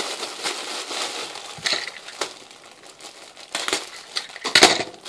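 Black plastic poly mailer bag crinkling and crackling as it is handled and opened. There are irregular rustles throughout and a few louder crackles, the loudest near the end.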